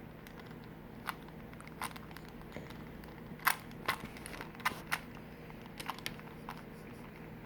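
Plastic 3x3 Rubik's cube being turned by hand in a speed solve: irregular sharp clicks as the layers are twisted, a few to several each second, some close together in quick runs.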